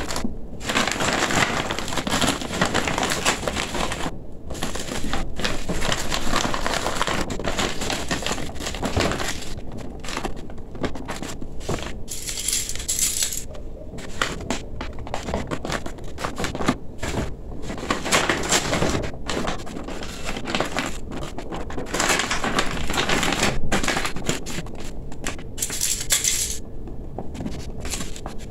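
Stiff, shiny gele head-tie fabric crinkling and rustling as hands fold, pleat and tuck it, in irregular bursts of handling with a few brief pauses.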